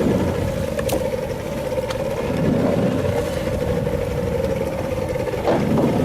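Boat engine running steadily, with a steady hum and low rumble and a few faint knocks.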